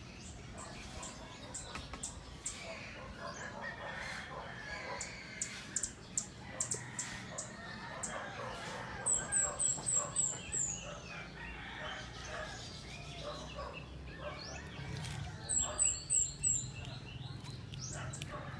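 Chickens and other birds calling, with two runs of about six quick, high, falling chirps, one about nine seconds in and another about fifteen seconds in, and a few scattered short taps.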